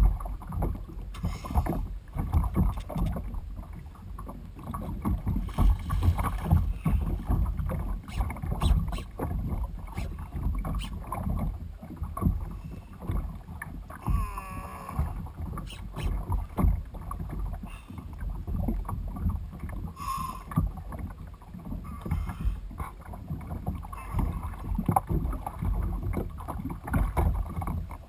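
Water lapping and sloshing against a kayak hull, an uneven low rumble that rises and falls, with a short warbling whine about halfway through.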